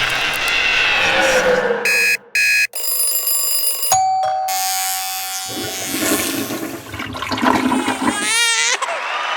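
A rapid montage of short, unrelated sound effects cut hard against each other: two brief electronic buzzes about two seconds in, a held tone around four seconds, and a fast warbling wobble near the end.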